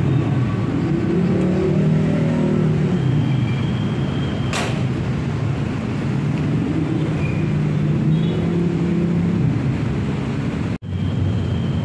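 Steady engine noise like road traffic, with a low motor hum that rises and falls in pitch. A single sharp click comes about four and a half seconds in, and the sound cuts out for a moment near the end.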